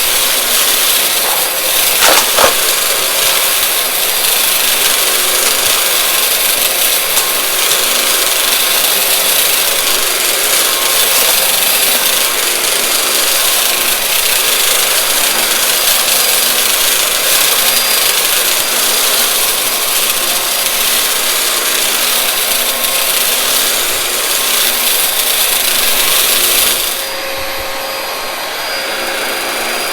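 Vacuum cleaner running and sucking up dry, crunchy debris, with a steady rough crunching and rasping. A sharp crackle comes about two seconds in, and the sound turns quieter and duller near the end.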